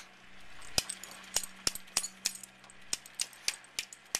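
A Yorkshire terrier tapping against aquarium glass: a run of irregular sharp clicks and clinks, about ten in four seconds, over a faint steady low hum.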